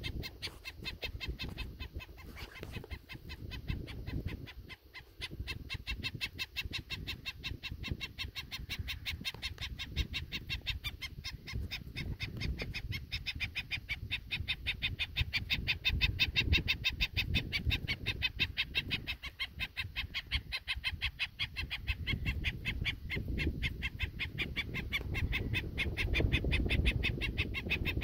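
Black-necked stilt giving agitated alarm calls: a rapid, continuous series of sharp, squawking yips, the alarm of a parent disturbed near its chick. A low rumble runs underneath.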